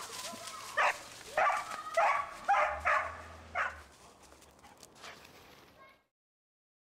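A dog barking in short, repeated barks, about six of them in the first four seconds, then quieter until the sound cuts off about six seconds in.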